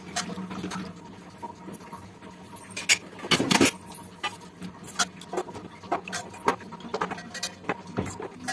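Amla (Indian gooseberries) being handled and scooped out of a stainless steel bowl of water, the fruit knocking and clattering against the steel in many small clicks. A louder clatter of steel dishware comes a little after three seconds in.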